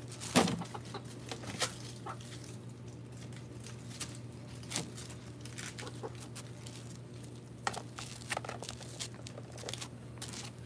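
Rhode Island Red hybrid and barred Plymouth Rock hens clucking softly while pecking at treats on dry leaf litter, with scattered sharp pecks and scratches; a louder one comes about half a second in. A faint steady hum runs underneath.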